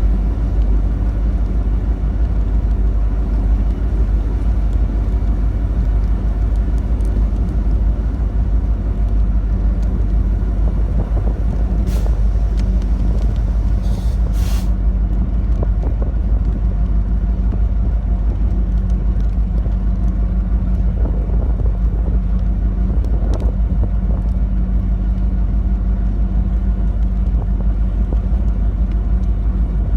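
A vehicle's steady low rumble, with a steady hum joining in about halfway through and a few brief hisses about twelve and fourteen seconds in.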